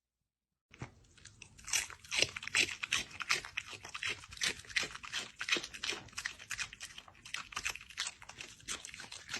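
A pet chewing and crunching hard food, a dense irregular run of crisp crunches and bites several times a second, starting about a second in.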